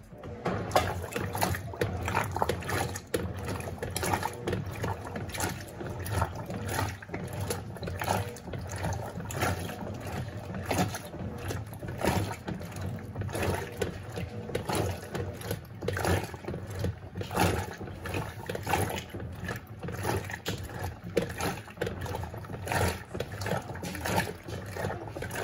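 Electrolux Turbo Compacta LTC07 top-loading washing machine agitating a load of rugs in low water: irregular sloshing and splashing over a steady motor hum, starting abruptly.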